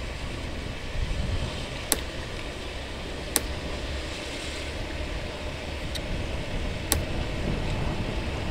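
Honda BeAT automatic scooter running along at road speed, a steady low engine and wind rumble as heard from the rider's position. A few short sharp clicks sound over it.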